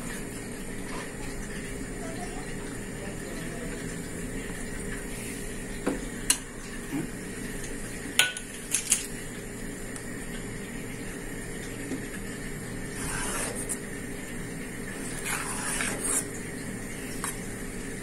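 Metal spoon stirring thick pumpkin pudding in a stainless steel pot. A few sharp clinks of metal on the pot come about six to nine seconds in, and short scraping strokes come near the end.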